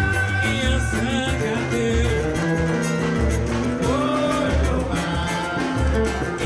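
Live samba band: voices singing over nylon-string acoustic guitar and a drum keeping a steady low beat.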